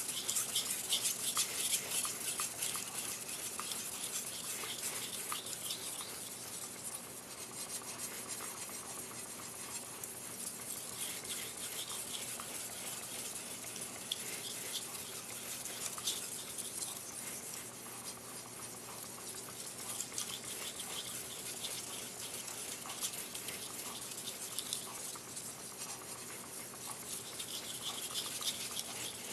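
A gyuto kitchen knife's blade sharpened on a wet whetstone, with repeated gritty scraping strokes of steel against stone.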